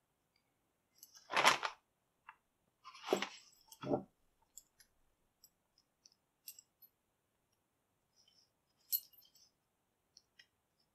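Gloved hands rummaging through a plastic postal mailing envelope of old padlocks and keys: a few short crinkling rustles and small metal clicks, the loudest about a second and a half in, more around three to four seconds in and once near nine seconds, with faint ticks between.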